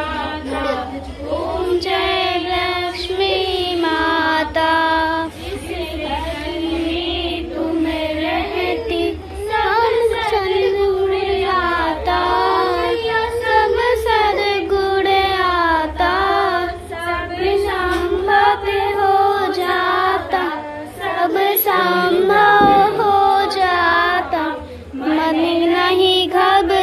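Several voices, mostly women's, singing a Hindu aarti hymn together in a slow, continuous melody as the lamp is waved.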